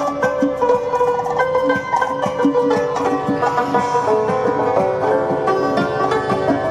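Background music led by a plucked string instrument playing a stream of quick picked notes over a steady accompaniment.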